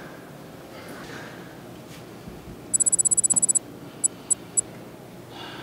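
High-pitched electronic beeping: a fast trill of about a dozen beeps lasting under a second, then three separate beeps spaced about a quarter-second apart, over a faint steady background hiss.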